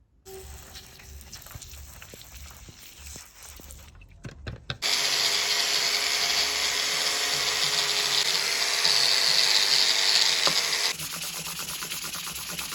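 Power tool grinding an aluminium bike stem to strip and smooth it: starts about five seconds in and runs steadily with a motor hum and harsh hiss. About two seconds before the end it gives way to quieter, quick rhythmic rubbing, as of sandpaper.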